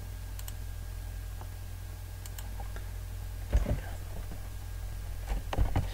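A few scattered clicks and taps on a computer keyboard while G-code is edited, more of them near the end, over a steady low electrical hum.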